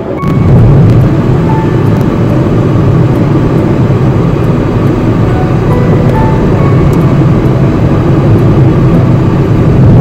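Road and engine noise inside the cabin of a moving car: a loud, steady low rumble that comes up about half a second in, with background music faint beneath it.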